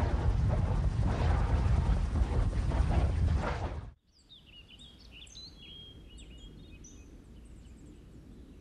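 Helicopter flying, a loud steady rotor and engine noise that cuts off suddenly about four seconds in. Then a quiet outdoor background with small birds chirping and tweeting.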